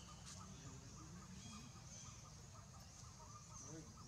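Faint forest ambience: small birds chirping over a low steady rumble.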